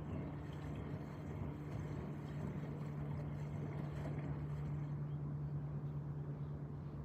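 Bosch Avantixx front-loading washing machine running: a steady low motor hum under an even rushing noise from the drum.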